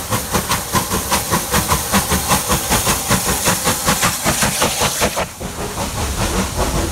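Southern Railway Bulleid Pacific three-cylinder steam locomotive working hard, its exhaust beating sharply about five times a second with steam hiss. About five seconds in the beats stop as the engine passes below, leaving the rumble and clatter of the coaches on the rails.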